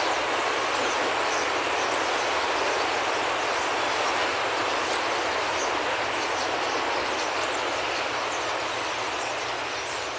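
Steady rushing whoosh of a huge flock of starlings in a murmuration, the wings of hundreds of thousands of birds, with faint high chirps over it, played back over the hall's loudspeakers. It slowly drops in level near the end.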